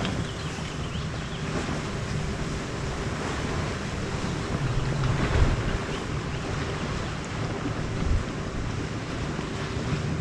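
Wind buffeting the microphone: a steady low rumble, with stronger gusts about five seconds in and again near eight seconds.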